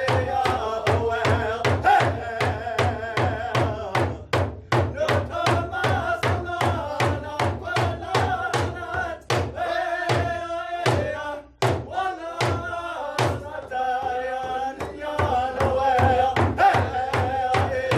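Several men singing a Native American song together to a steady hand-drum beat, about three strokes a second. The voices drop out briefly twice, a little after the middle.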